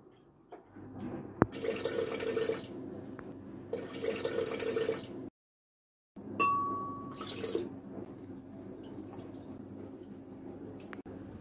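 Soy milk pouring from a carton into a glass blender jug, in two pours of a second or so each. Then comes a cut to dead silence, followed by a short ringing tone and a low, steady hum.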